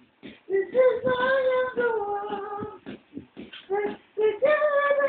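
A young child singing in a high voice, holding two long notes: one for about two seconds starting near the first second, another near the end. Short, rhythmic syllables fill the gap between the notes.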